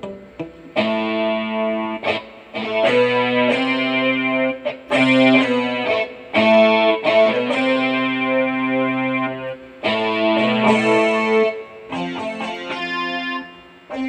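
Yamaha PSR-E333 portable keyboard played with both hands: sustained chords that change every second or two, on a built-in voice that sounds like an electric guitar.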